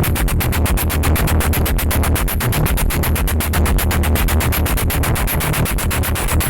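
Electronic dance music played loud through a big competition sound system, with heavy, booming bass and a fast, even pulse.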